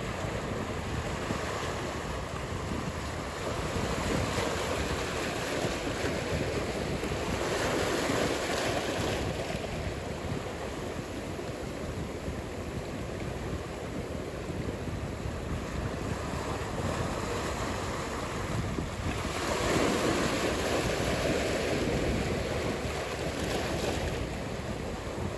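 Ocean surf: a steady wash of breaking waves, swelling around 8 seconds in and more loudly around 20 seconds in.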